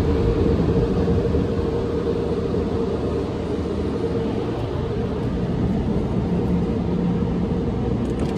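Car wash dryer blowers running: a steady rushing noise with a held hum, heard from inside the car's cabin.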